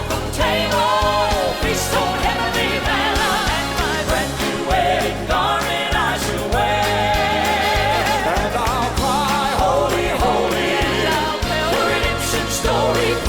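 Southern gospel music: several voices singing with vibrato over a full band with steady bass.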